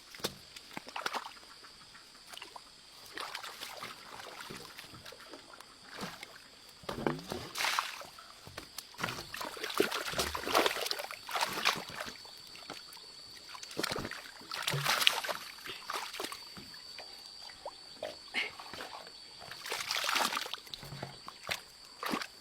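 Water splashing and sloshing in irregular bursts, the loudest around the middle, over a steady thin high tone.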